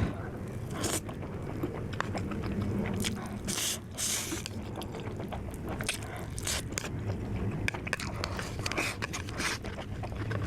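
A person eating noodles close to the microphone: biting and chewing, with many short clicks and a few brief sharp noisy bursts.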